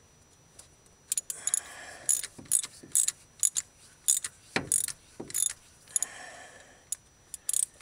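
Ratchet clicking in irregular bursts, with two short rasping strokes, as a spark plug thread chaser is worked back and forth in a Ford 300 inline-six cylinder head, cleaning carbon-clogged plug threads.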